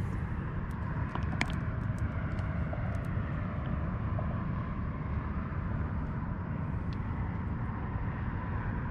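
Steady low outdoor rumble, with a scattering of small sharp clicks in the first three seconds.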